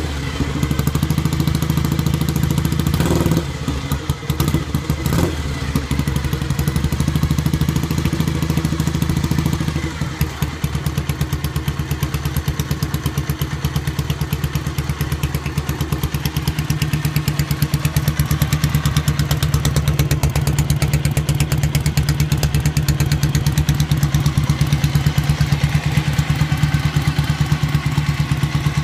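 1959 Jawa 500 OHC's parallel-twin four-stroke engine running, uneven for the first several seconds as the motorcycle comes to a stop, then idling steadily from about ten seconds in.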